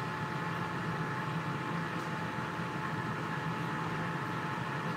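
GoWISE USA air fryer running, its fan giving a steady whir with a thin steady tone above it.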